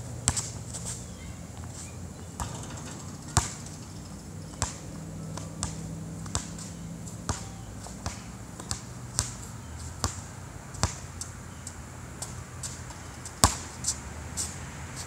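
A basketball bouncing on an outdoor asphalt court, dribbled in an uneven rhythm of about one bounce a second, with a few harder, louder hits.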